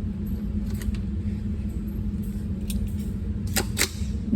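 Steady low rumble with a few sharp, light clicks, two of them close together near the end.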